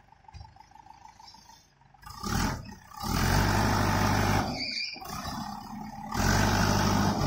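JCB 3DX backhoe loader's diesel engine running hard as the backhoe digs, loud and steady from about two seconds in, with two short breaks.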